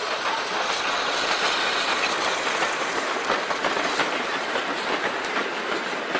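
Model railway goods wagons rolling past close by, a steady rattling run of small metal wheels on the track with light clicks over the rail joints.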